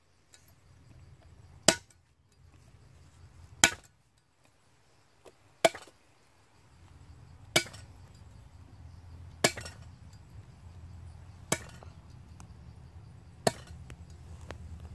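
A blade chopping garlic on a thick round wooden chopping block: seven sharp single strikes, about two seconds apart.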